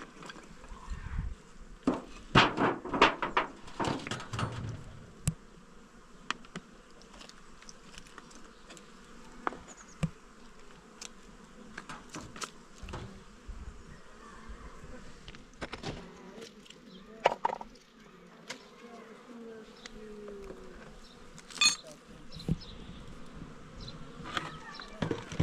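Insects buzzing, with scattered sharp knocks and clicks that come in a cluster during the first few seconds and a few more later.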